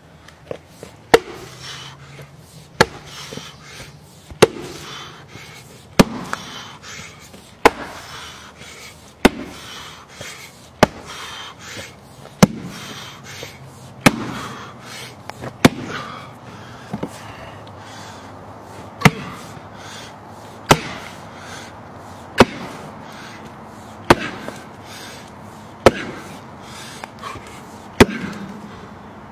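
A 6-pound axe striking a large log round again and again to split it. Sharp chopping cracks come about every one and a half to two seconds, roughly seventeen blows in all.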